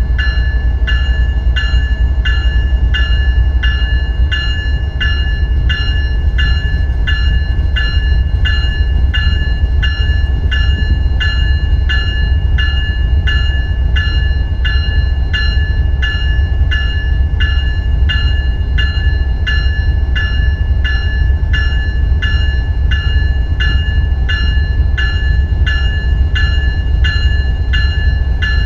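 Locomotive electronic bell (e-bell) ringing steadily, about one and a half strokes a second, each stroke a clear ringing tone, over a steady low rumble.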